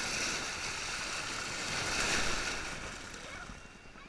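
Ocean surf breaking and washing right over the microphone: a rush of water that builds, is loudest about two seconds in, and fades near the end.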